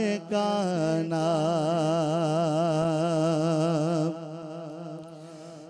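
A voice singing a naat, holding one long note with a wavering vibrato over a steady low hum, then fading about four seconds in.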